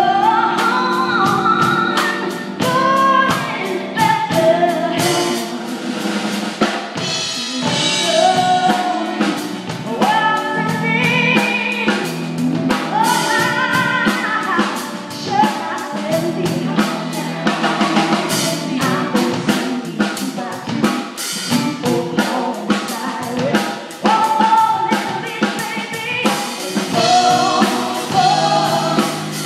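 Live praise team singing a gospel Christmas song, a lead voice over backing vocals, with a full band and drum kit keeping a steady beat.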